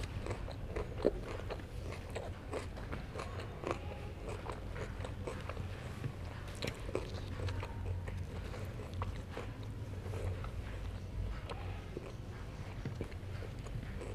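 Close-miked biting and chewing of herring: irregular small wet clicks and crunches, over a steady low hum.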